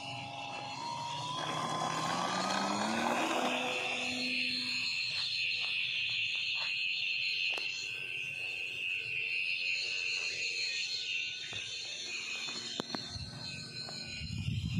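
RC Piper J-Cub model plane's motor and propeller rising in pitch as it throttles up and takes off, followed by a steady high buzz. A low rumble comes in near the end.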